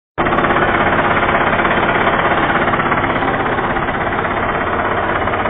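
Tractor engine running close by with a fast, even pulsing beat, pulling a plastic-mulch and drip-tape laying attachment.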